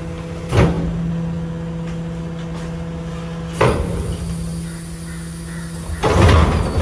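Rear-loader garbage truck's hydraulic bin lifter humming steadily as it raises and tips a wheelie bin, with a clunk about half a second in and another about three and a half seconds in, then a louder clatter near the end as the bin tips over the hopper.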